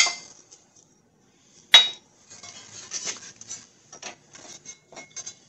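Metal parts clanking on a hydraulic shop press as a steering knuckle and steel press adapters are set in place: two sharp clanks, one at the start and one a little under two seconds in, then a run of lighter clinks and rattles.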